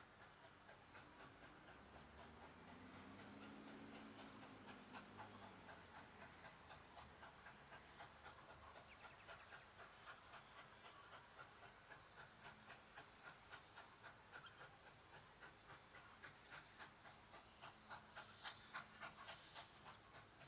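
Distant Victorian Railways K class 2-8-0 steam locomotive working toward the listener, its exhaust beats faint and rhythmic and a little clearer near the end. A low drone swells and fades in the first few seconds.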